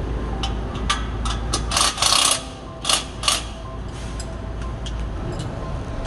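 Ratchet tightening a nut on a new bolt at an exhaust flange joint, the bolt head held with locking pliers: a run of metal clicks with a few louder rasping bursts around the middle, over a steady low hum.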